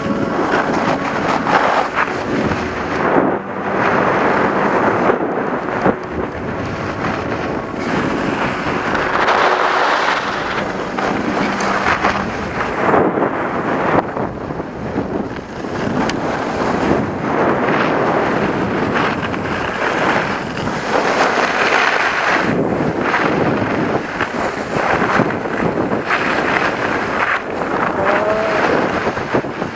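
Wind buffeting the microphone along with the steady rush of skiboards sliding over snow during a run down the slope.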